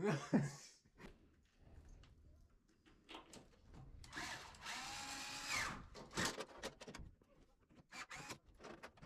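Power drill running for about a second and a half, roughly four seconds in, amid light knocks and clicks of washer parts being handled.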